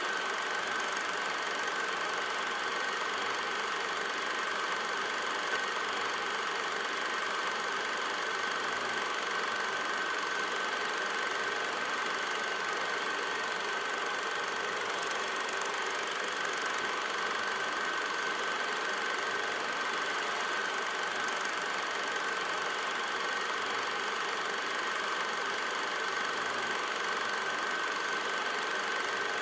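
Cine film projector running: a steady mechanical whirr and clatter with an unchanging high hum and hiss.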